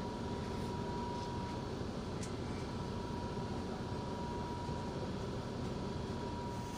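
Steady rumble and ventilation hiss of a coach bus heard inside the passenger cabin, with a thin steady high tone over it.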